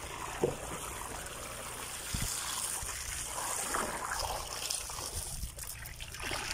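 Water pouring from a PVC pipe outlet into a plastic drum, a steady splashing pour as the drum fills nearly to the brim.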